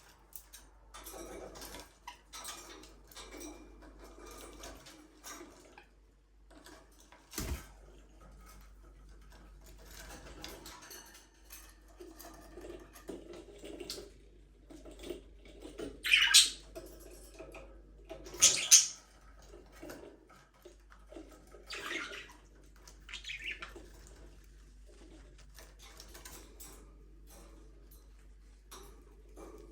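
A flock of budgerigars chirping and chattering, with several louder sharp calls around the middle and a single sharp knock about a quarter of the way in.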